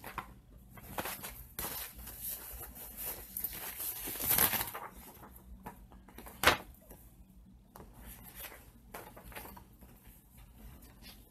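Paper rustling as a printed instruction leaflet is handled and unfolded, louder about four seconds in, with a single sharp click a couple of seconds later.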